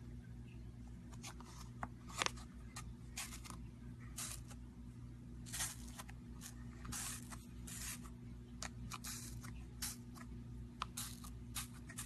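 Slime being squished and stretched by hand: irregular short crackles and squishes, a few lasting about half a second, over a steady low hum.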